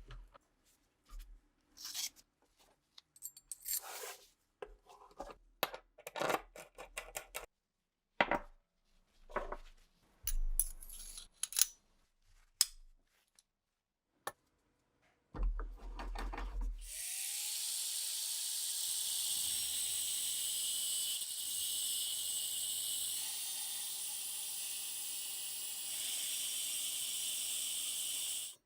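Workshop handling sounds from rifle restoration work: scattered clicks, knocks and scrapes of tools and parts. About two-thirds of the way in, a steady high hiss starts and runs on to the end.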